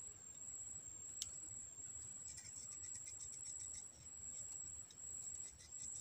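Faint insects calling: a steady high-pitched buzz, joined about two seconds in by fast chirping pulses. There is a single sharp click about a second in.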